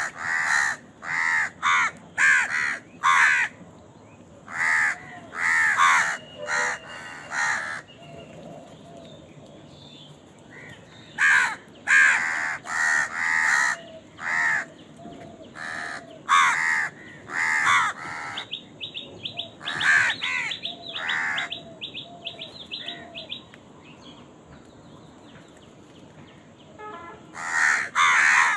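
Crows cawing: harsh calls in runs of three to six, with pauses of a few seconds between runs. Around the middle, a fast run of short high ticks sounds under the calls.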